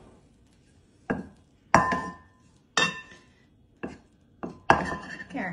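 A wooden spoon knocking against a ceramic bowl of cauliflower wings as they are tossed in sauce: about six separate clinks, a couple of them ringing briefly.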